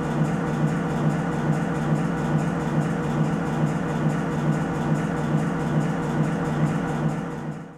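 Fast & Fluid GA450 paint mixer running, spinning a paint can: a steady low machine hum with a regular pulse a little over twice a second. It fades out near the end.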